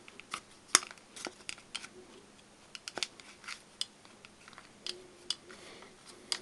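Irregular light clicks and taps of a thin basswood strip being handled and worked against a clamp, with faint rustling between them; one sharper click comes just under a second in.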